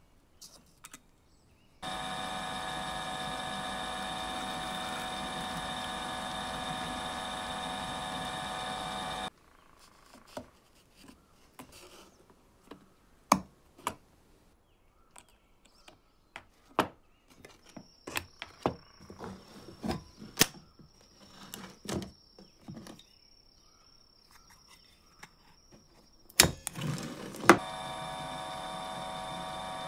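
Komunaras bench drill press motor running with a steady hum for about seven seconds, then stopping. Small clicks and taps of metal parts being handled follow. Near the end come a couple of loud knocks, and the drill press starts running again.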